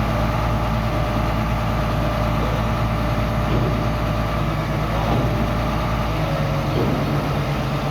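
Heavy diesel engine of construction equipment running steadily, with no revving.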